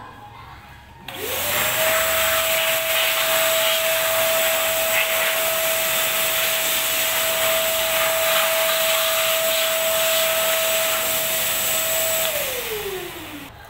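Wet/dry shop vacuum switched on about a second in, its motor whine rising quickly to a steady pitch and running evenly while the hose cleans the brake assembly. It is switched off near the end, the pitch falling as the motor winds down.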